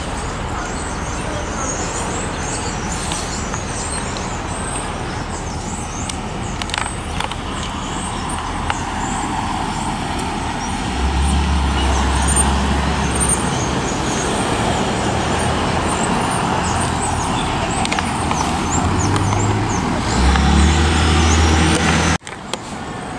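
Street traffic going by on a city street: a steady wash of passing cars, with heavier low rumbles of vehicles passing about halfway through and again near the end.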